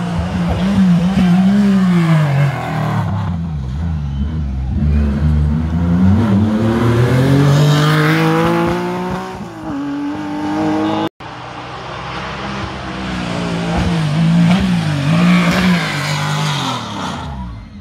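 Historic rally car engines working a tight hairpin. A Porsche 911's flat-six revs up and down through the bend, then pulls away with one long rising climb in revs. After a sudden cut, a second rally car's engine comes in, its revs rising and falling before fading near the end.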